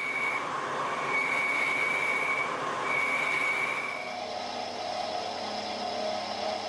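Machine tool cutting a cast-iron flywheel dry, with a steady high-pitched squeal of tool on metal. The squeal comes and goes three times, then changes to a lower whine about four seconds in.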